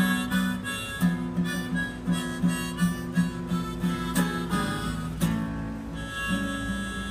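Harmonica playing a blues break over a fingerpicked acoustic guitar, whose bass notes keep a steady pulse of about two a second.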